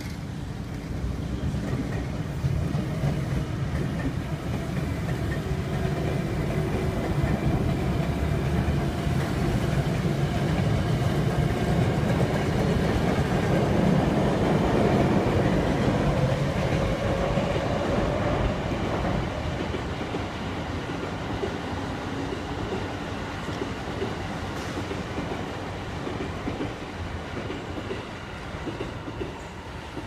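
Electric commuter train passing, a rumble with wheels clacking over rail joints that builds, is loudest about halfway through and then fades. A rising whine is heard around the middle.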